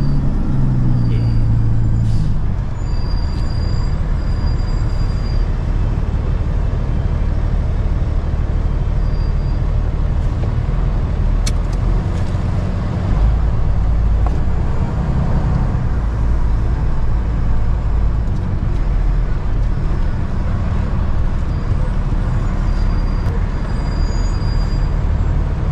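Garbage truck on the move: a steady low engine rumble with road noise, and a thin high whine that comes and goes near the start and again near the end.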